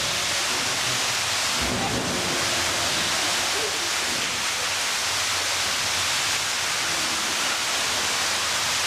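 Steady rushing of running water, with splashing from a young elephant playing in an inflatable paddling pool.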